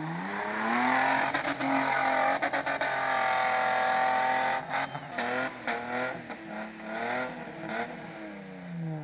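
A vehicle engine revs up over the first second, holds at high revs, and drops back near the end, with runs of sharp clicks in the middle.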